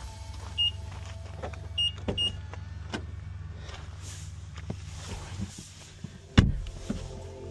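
Black BMW i4's driver door opened and the driver getting in: scattered clicks and rustles, three short high beeps in the first couple of seconds, then the door shut with a heavy thump about six and a half seconds in.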